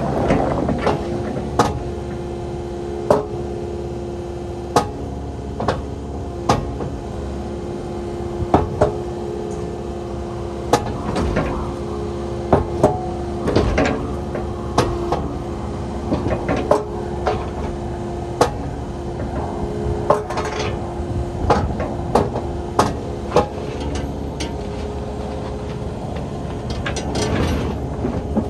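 Kubota KX080 crawler excavator running under operation: a steady engine drone with many irregular sharp metal knocks and clanks, roughly one every second or so.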